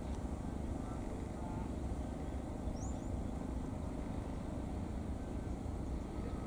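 Steady low outdoor rumble, with a short rising bird chirp about three seconds in.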